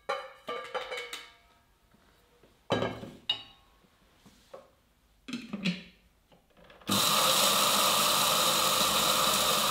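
Cocoa nibs rattle into the stainless-steel jar of an electric kitchen chopper, followed by a few metal clinks and clunks. About seven seconds in, the chopper's motor starts abruptly and runs loud and steady at high speed, grinding the nibs.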